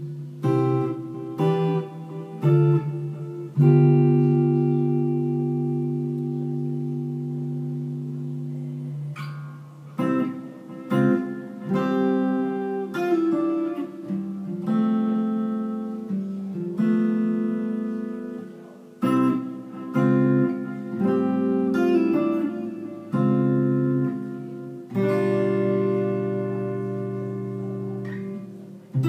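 Fernandes Stratocaster-style electric guitar played solo: chords struck and left to ring out, with shorter stabs and picked notes in between. A loud chord about four seconds in rings on for several seconds, and another long ringing chord comes near the end.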